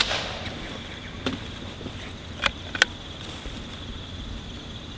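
Outdoor background hiss with a faint steady high-pitched whine, broken by a few small clicks: a sharp one at the very start, one about a second in, and two close together about two and a half seconds in.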